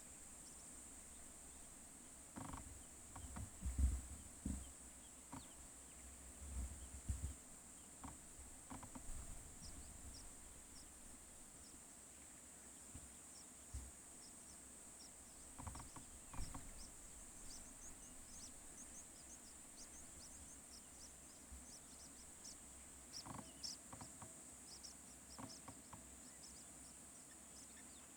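Steady high-pitched drone of insects in the bush, with many short high chirps from about ten seconds in. A few low thumps come in the first several seconds.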